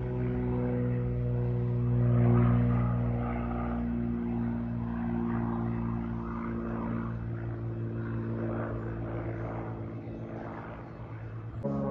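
Light propeller airplane flying overhead: a steady engine-and-propeller drone, loudest about two seconds in and slowly fading. Near the end it cuts abruptly to another propeller drone.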